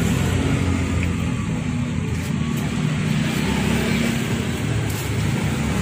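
Street traffic: a steady engine hum from vehicles on the road, shifting in pitch a couple of times as they pass.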